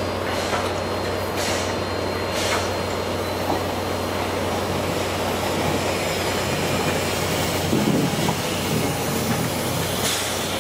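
C11 steam tank locomotive rolling slowly with a brake van in tow, a steady rumble of the running gear on the rails, broken by a few short hisses.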